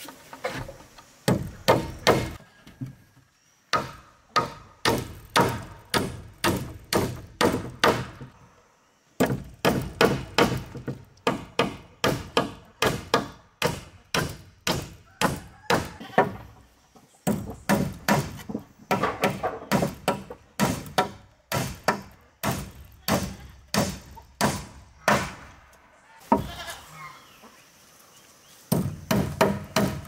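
Hammer driving nails into rough wooden fence planks: runs of sharp strikes, about two to three a second, with short pauses between nails.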